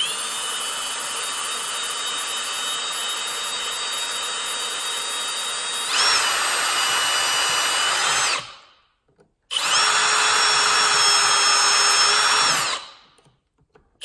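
Cordless drill with a 1/8-inch bit drilling pilot holes through a snowmobile's plastic body panel. The motor whines steadily, speeds up and gets louder about six seconds in, then stops. A second run lasts about three seconds, and it starts again at the very end.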